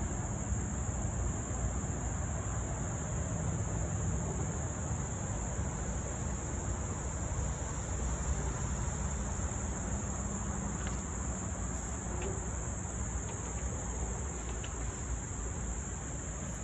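Steady high-pitched drone of a rainforest insect chorus, unbroken throughout, over a low rumble.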